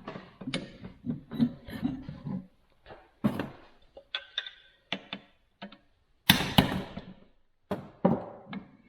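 Irregular hammer blows and metal knocks, steel on steel, driving a broken pin out of a cast-iron bench vise. Some strikes ring briefly, and the loudest blows come close together about six and a half seconds in.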